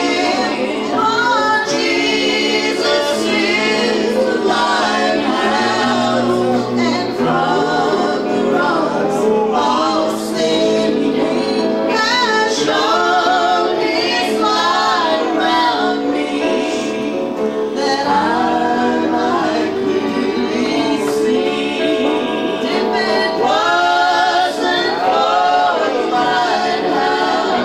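Gospel song: a woman sings lead into a microphone with a wavering vibrato, accompanied by acoustic guitar.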